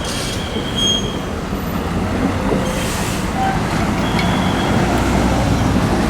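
Large tour bus running close by, a steady engine rumble and road noise that grows slowly louder, with a few short high squeals.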